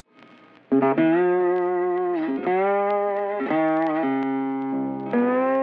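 Music: a guitar playing long held notes that bend slightly in pitch, moving to a new note about every second, entering after a brief near-quiet pause.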